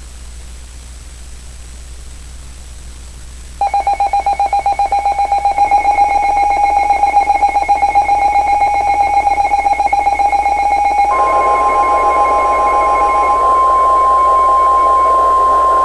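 Radio static hiss, then, about three and a half seconds in, the loud pulsing Emergency Alert System two-tone attention signal starts. About eleven seconds in, the single steady NOAA Weather Radio alert tone takes over as the two-tone fades beneath it.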